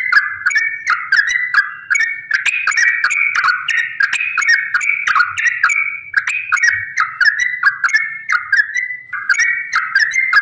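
Yellow-vented bulbul (trucukan) singing a long, fast, unbroken run of bubbly chattering phrases, about three a second, with a few brief lulls.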